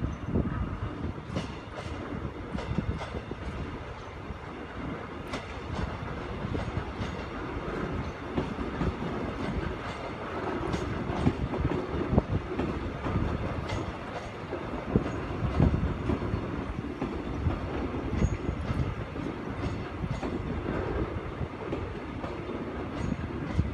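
Korean electric commuter train running through a rail yard, its wheels clicking irregularly over rail joints and points over a steady rumble.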